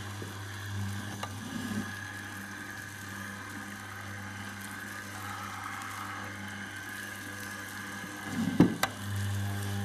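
Boilie dough mixer running steadily, its motor humming as the mixing fingers turn the dough in the stainless steel pot. There are a few small knocks about a second and a half in, and one loud knock near the end.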